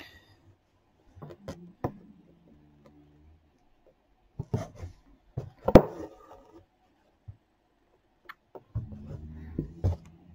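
Scattered soft taps and clicks of a needle and thread being worked through fabric stretched in a wooden embroidery hoop, the sharpest tap about halfway through. A low drone comes twice, briefly near the start and again for about a second near the end.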